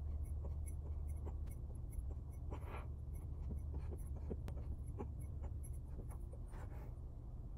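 Faint scratchy rustling and small scattered clicks over a steady low hum, from a person doing push-ups on a carpeted floor close to the microphone.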